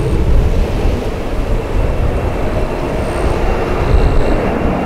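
Embraer E190 jet's two CF34 turbofans at takeoff thrust as the airliner accelerates down the runway: a loud, steady rumble with a thin, steady high whine over it.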